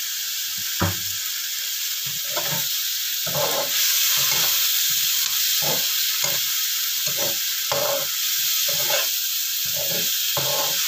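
Tofu, black soybeans and tomatoes frying in a non-stick wok: a steady sizzle that grows louder about four seconds in, with a metal spatula scraping and knocking against the pan over and over as the food is stirred.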